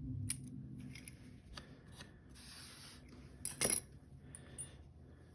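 Euro cylinder lock being handled while it is reset for gutting: scattered small metal clicks and a brief scraping rub, with the loudest sharp click about three and a half seconds in.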